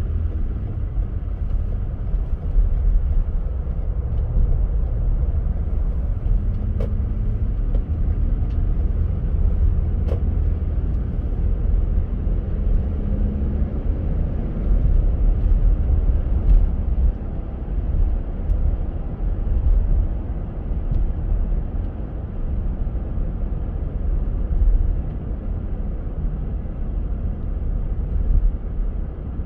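Car driving on a snow-covered road: a steady low rumble of engine and tyres.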